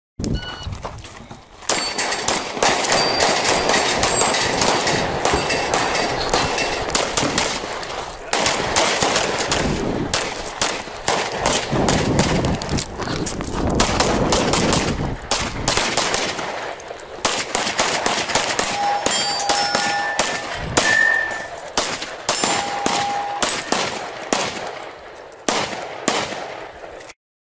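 Rapid handgun fire in fast strings of shots through a practical pistol stage, with steel targets ringing briefly when hit.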